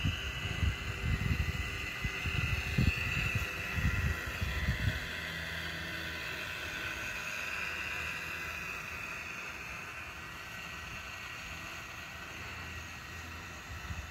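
Steady high whine of the small 180-size electric propeller motor of a 1:16 scale RC Ford GPA amphibious jeep under way in the water, growing fainter in the second half. Low buffeting of wind on the microphone during the first five seconds.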